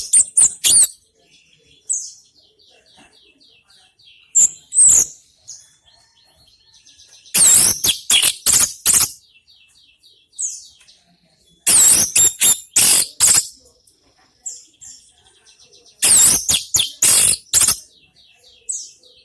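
Orange-headed thrush singing loud, high-pitched bursts of song a second or two long, about every four seconds. Between the bursts there is a quieter, rapid twittering.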